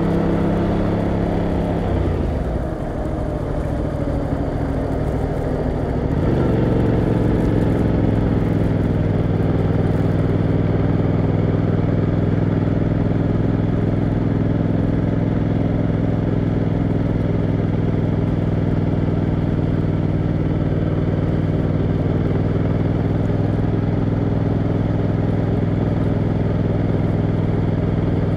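Motorcycle engine heard from the rider's seat, with its revs falling as it slows over the first couple of seconds. About six seconds in the revs pick up again, and it then runs at steady revs while cruising in third gear.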